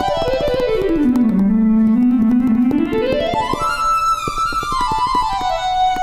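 Geo Synthesizer app on an iPad played in fast runs of short, quick notes. A run sweeps down to low notes, climbs back up about halfway through, then falls again and starts rising near the end.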